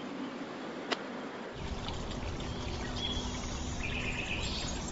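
Tyre and road noise of a Volkswagen ID.4 GTX dual-motor electric SUV driving on a road, with no engine note, only a faint steady hum. A single sharp click comes about a second in, and the rush grows louder and deeper about a third of the way through.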